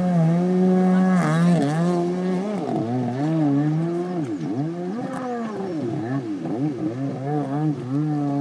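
Kawasaki 750 SX stand-up jet ski's two-stroke twin engine running hard, its pitch steady at first and then dipping and rising again several times as it is revved down and up.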